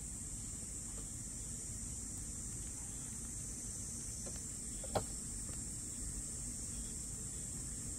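Quiet background ambience: a steady high-pitched hiss over a low rumble, with one sharp click about five seconds in.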